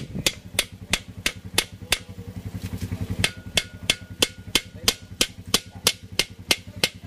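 Small steel hammer tapping on the top rim of a cylinder liner in an Isuzu 4BC2 diesel engine block, metal on metal, about three sharp strikes a second. The tapping pauses for about a second near two seconds in, then carries on at the same pace.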